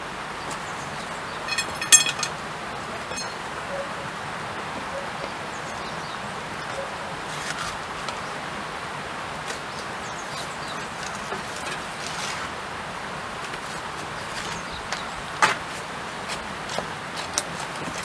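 Stones of a dry-stone wall being handled and shifted: a few sharp clinks and knocks, the loudest about two seconds in with a brief ringing tone, another a little after, and scattered smaller knocks later over a steady outdoor hiss.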